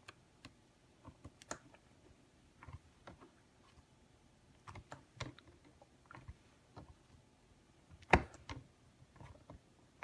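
Scattered light clicks and taps from hands handling cardstock, magnets and the clear plastic plate of a Stamparatus stamp-positioning tool, with one louder knock about eight seconds in.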